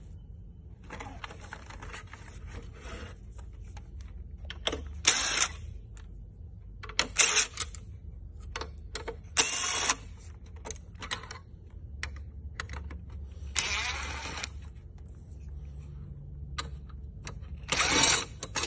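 DeWalt cordless impact driver running in a series of short bursts, a few seconds apart, undoing the screws on a car head unit's metal mounting bracket, with small clicks of screws and parts being handled in between.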